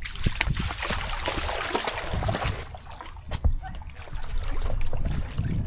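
Water splashing, densest in the first two or three seconds and then thinning out, over a low rumble.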